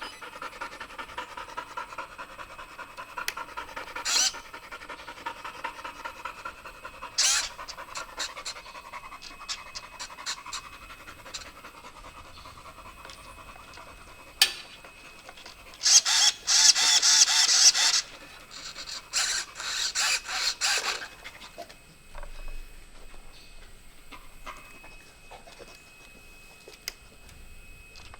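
Rapid, steady panting, about three or four breaths a second, for the first half. Several loud rustling bursts follow about halfway through. The new motor is not heard running.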